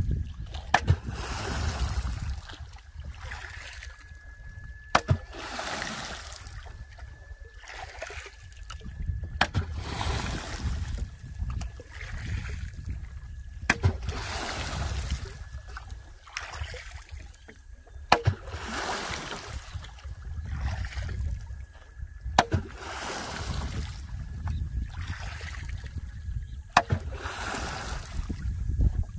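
Rhythmic water strokes from a small fishing boat: a sharp knock followed by a splash and swish of water, repeating about every four seconds.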